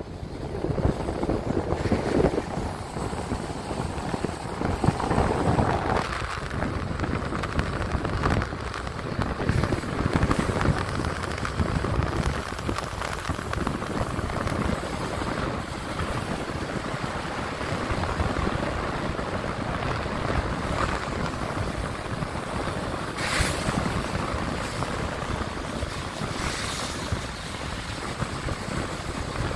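Wind buffeting the microphone from a moving car, over the steady hiss of tyres on a wet road. There are two brief sharper hisses near the end.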